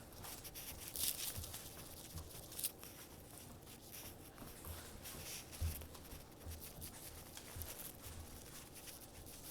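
Faint scuffling, rustling and soft irregular thumps of a puppy tugging and tussling on a toy, with one slightly louder thump a little past halfway.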